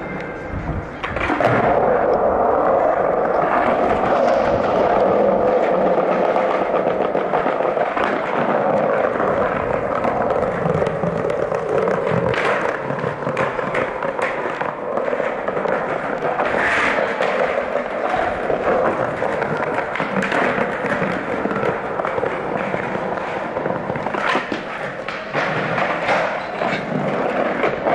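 Skateboard wheels rolling on a smooth stone floor, a steady rumble, broken several times by the sharp clack of the board hitting the ground as tricks are popped and landed.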